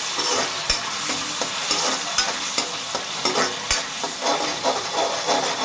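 Onion-tomato masala sizzling in hot oil in a metal kadhai while a steel spatula stirs and scrapes it, with a few sharp clinks of the spatula against the pan.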